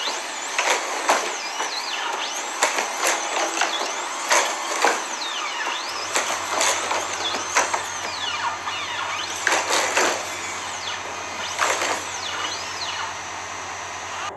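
Boston Dynamics Atlas humanoid robot moving through a gymnastics routine. Its hydraulic actuators whine in sweeps that rise and fall with each motion over a steady hiss, and its feet land with irregular thumps.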